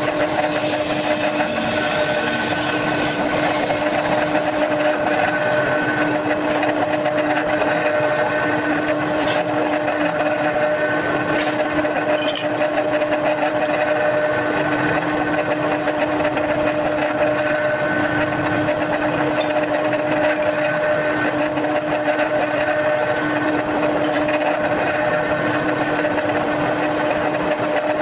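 Electric power tool running steadily without a break, a constant motor hum with a higher whine that comes and goes every few seconds.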